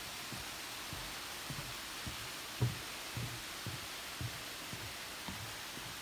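Walking footsteps, soft low thumps about twice a second with one heavier step about two and a half seconds in, over a steady rushing hiss of flowing stream water.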